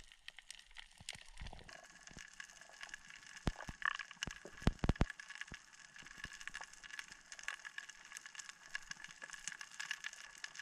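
Underwater crackling on a coral reef, heard through a waterproof camera housing: many scattered sharp clicks, with a few louder knocks about four to five seconds in, over a faint steady hum.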